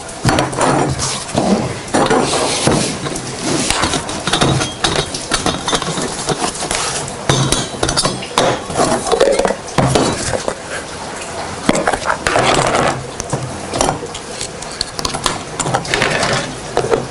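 Metal camping cookware clinking and clattering: a small tin-can alcohol stove, nesting cups and bowls and a pot with its lid handled, fitted inside one another and set down, in many short knocks and clinks.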